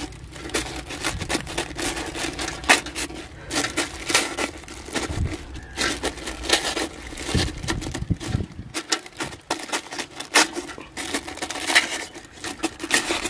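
Butter paper crinkling and crackling in an irregular run of sharp crackles as a knife tip pokes holes through it.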